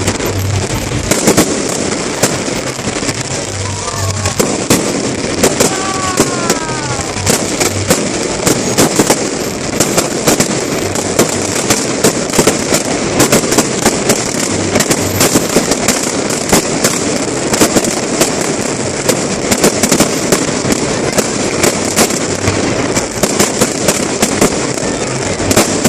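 Aerial fireworks going off in a dense, continuous barrage of sharp cracks and crackle, with low booms mixed in.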